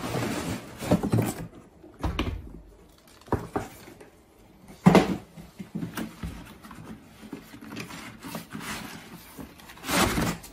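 Cardboard packaging rustling and scraping as hard plastic tool cases are slid out of their boxes and set down, with scattered knocks. The loudest is a thump about five seconds in.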